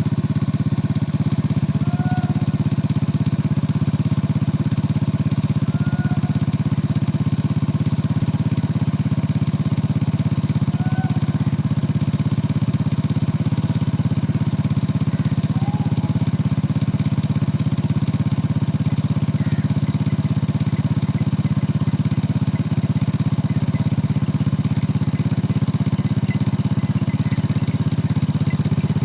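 An engine running steadily at an unchanging low idle-like hum. A few faint short chirps sound over it at intervals.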